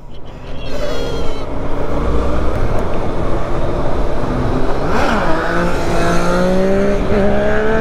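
Sport motorcycle engines accelerating hard away from a stop, the engine pitch climbing steadily, with wind rushing over the helmet microphone.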